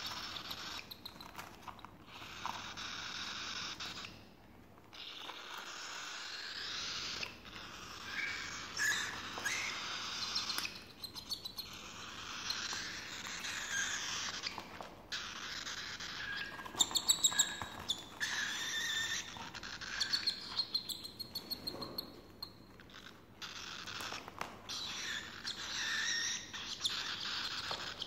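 Cockatiel chicks giving hissy, raspy begging calls while being hand-fed formula from a syringe, in runs broken by short pauses: the feeding response of hungry chicks.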